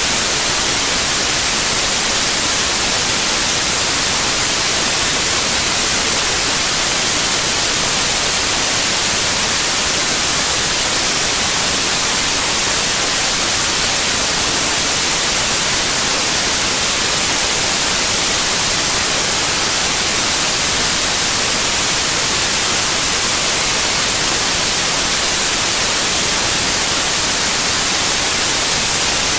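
Loud, steady electronic hiss like static, unchanging throughout and strongest in the high end, with no sound from the scene coming through.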